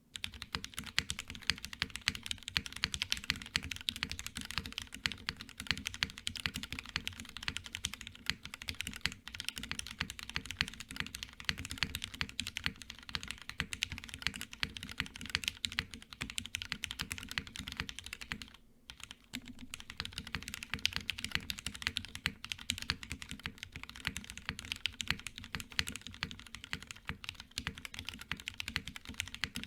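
Steady, fast typing on a plateless PCB-mounted custom mechanical keyboard (Xeno by Ion) with Gateron Giants switches fitted with TX films and GMK Olivia doubleshot ABS keycaps: a dense run of keystroke clacks, with a short pause about two-thirds of the way through.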